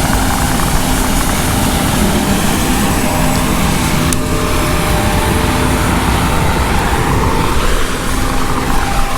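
Steady drone of a large farm machine's engine and drivetrain, heard from inside the cab, with a faint click about four seconds in.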